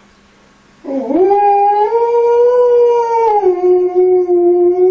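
Alaskan Malamute howling: one long howl starting about a second in, sliding quickly up in pitch, holding steady, then dropping a step lower near the middle and holding again.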